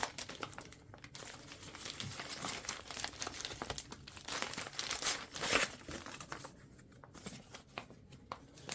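Paper instruction leaflets being handled and unfolded: irregular rustling and crinkling, with a louder crinkle about halfway through that thins out toward the end.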